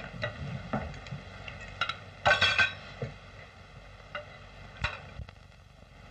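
Dishes and cutlery clinking and knocking at a supper table: scattered short clinks and taps, with one louder half-second clatter a little over two seconds in, over the steady hum of an old film soundtrack.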